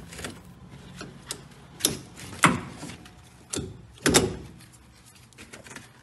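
Sharp metal clicks and knocks as an R744 (CO2) air-conditioning service coupling and its hose are handled and fitted onto the low-pressure service port, in a series of separate clicks, the loudest about two and a half and four seconds in.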